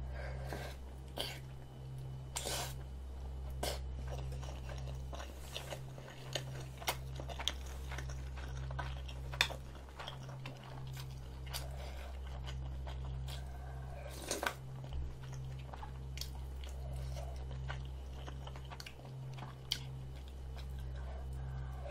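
Close-miked chewing of chewy rice cakes and ramen noodles in spicy sauce: wet mouth clicks and smacks come every second or so. A steady low hum runs underneath.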